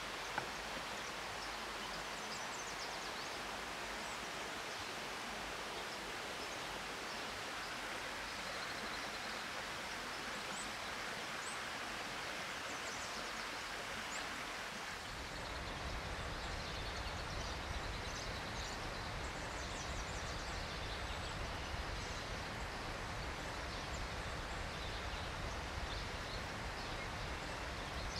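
Steady forest ambience: an even hiss of moving leaves or water with faint, short, high bird chirps scattered through it. About halfway in, a low rumble joins the hiss.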